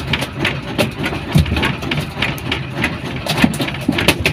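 A queenfish thrashing in a wooden boat's fish hold, its body knocking irregularly against the planks, over a boat engine running steadily.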